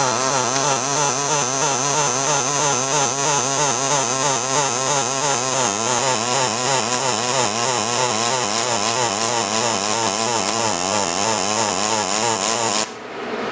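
MIG welding arc from an ANDELI MIG-350FP in double-pulse mode, running a bead on 5 mm carbon steel with 1.2 mm wire: a steady buzz whose pitch warbles up and down about twice a second, following the 2.3 Hz pulse frequency. The arc cuts off about a second before the end.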